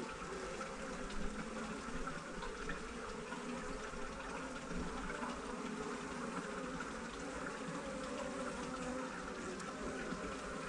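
Honeybees buzzing steadily around an open hive as a frame of bees is lifted out.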